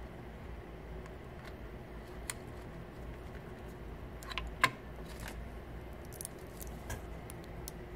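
Small clicks and taps of 3D printer hot end parts being handled by hand, scattered and irregular, with the loudest sharp click a little past the middle. A low steady hum sits underneath.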